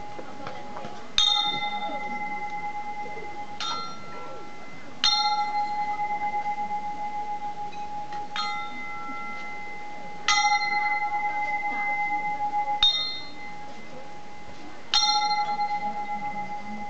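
A metal bell struck seven times at uneven intervals of about two to three seconds, each strike ringing on in a few steady tones that slowly fade with a throbbing swell.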